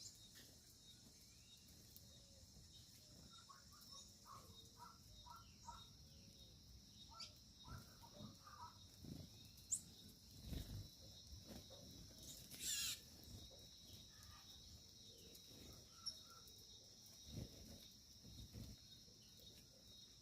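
Faint, steady high-pitched buzz of insects with scattered short bird chirps in quick runs. One louder bird call comes about two-thirds of the way through.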